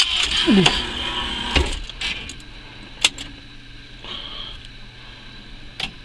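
Claw crane machine mechanism working: a motor whir that falls in pitch early on, then a few sharp clicks and knocks from the claw and gantry.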